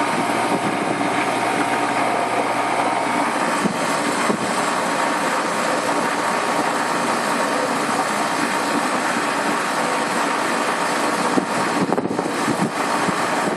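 Air-conditioning unit running: steady compressor and condenser-fan noise, with a faint steady tone that fades out a few seconds in.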